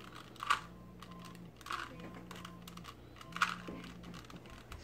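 Plastic Rubik's Cube being turned by hand during a solve: quick clicking clacks of its layers rotating, a louder burst every second or two with fainter clicks between.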